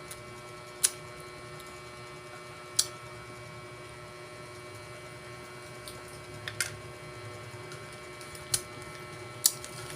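A steady electrical hum with about five short, sharp clicks spread through it.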